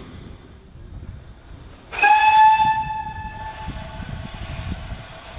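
Steam locomotive whistle, the GWR 2800-class 2-8-0 No. 2857's, giving one loud blast of about a second and a half, about two seconds in, over a low background rumble of the engine and the station.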